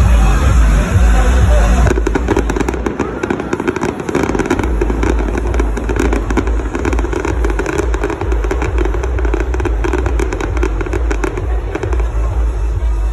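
Aerial fireworks going off in many quick, sharp pops and crackles. They start about two seconds in and ease off near the end, over crowd voices.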